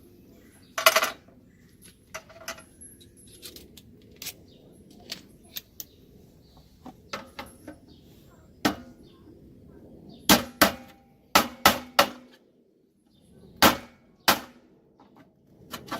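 Hammer strikes knocking out a conduit knockout on the wall-mounted Hayward Goldline controller box: irregular sharp knocks, mostly light, with a run of hard blows about ten seconds in and two more a few seconds later.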